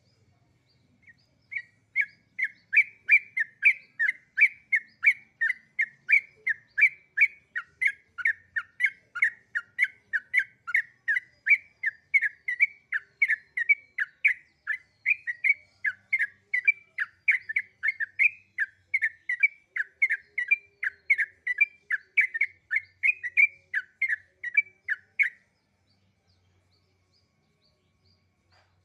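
A songbird calling over and over in short, evenly spaced notes, about two a second, for about twenty-four seconds before stopping.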